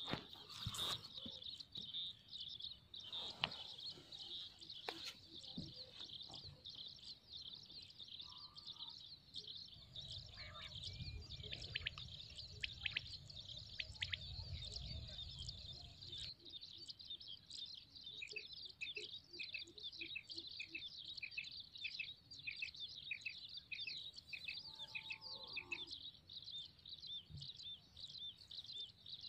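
Birds chirping without a break, a dense run of quick high notes. In the second half a single call note repeats evenly, about one and a half times a second, for several seconds.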